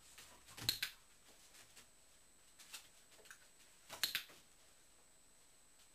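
A dog-training clicker clicked twice, about three seconds apart, each a quick double click. It marks the dog touching the trainer's hand with its nose, the signal that a treat follows.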